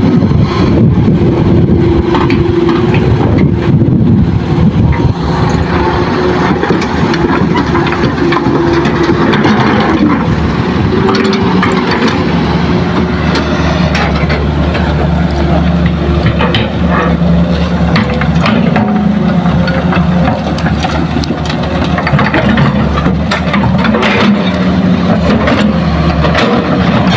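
Diesel engine of a Hitachi hydraulic excavator running steadily under load, its pitch shifting a little as it digs and swings. Scattered knocks of soil and stones drop into a steel dump-truck body.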